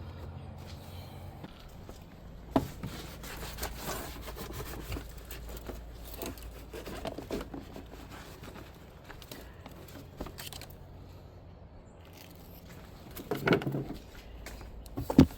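Quiet handling noises: faint scrapes and rustles, with a sharp click about two and a half seconds in and a short louder burst near the end.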